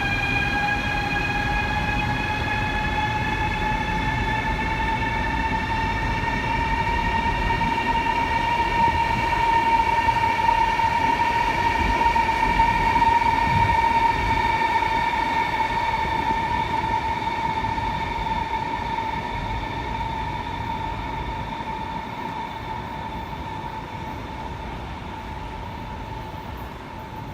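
A steady mechanical whine over a low rumble, like a passing vehicle. Its pitch rises slowly and then eases back. It is loudest near the middle and fades toward the end.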